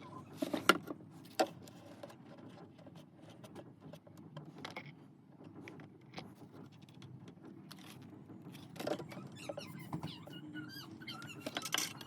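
Scattered sharp clicks and taps of small parts and tools being handled during a repair, the loudest within the first second and a half, over a low steady hum, with a few faint squeaks near the end.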